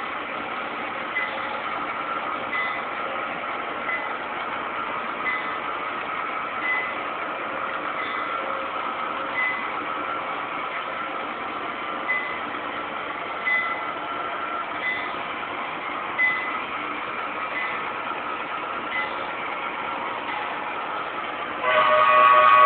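A model locomotive's sound system plays a diesel engine running steadily, with a faint click repeating about every second and a half. Near the end a horn sounds a loud chord of several notes.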